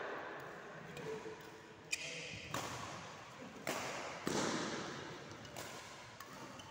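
Badminton shuttlecock struck by rackets, about four sharp cracks spaced roughly half a second to a second apart, each ringing on in the echo of a large hall.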